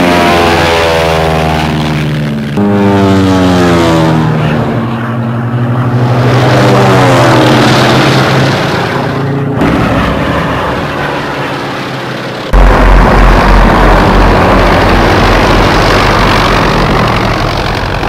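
Propeller aircraft piston engines flying past, the engine note bending in pitch as each plane goes by, with a second pass starting about two and a half seconds in. About twelve and a half seconds in, a louder, deep steady rumble comes in.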